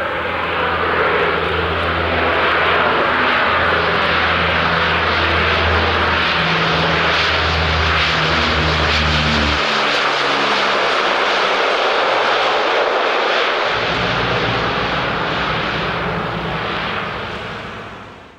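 Lockheed L-188 Electra's four Allison 501 turboprop engines at climb power just after takeoff as the airliner passes overhead: a loud, steady drone with low propeller tones that shift partway through. The sound fades out quickly near the end.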